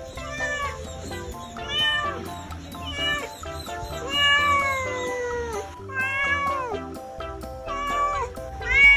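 Tabby cat meowing loudly and repeatedly while held up outdoors, about seven drawn-out meows with the longest, falling in pitch, about four seconds in. These are protesting meows of a cat upset at being taken outside, over background music.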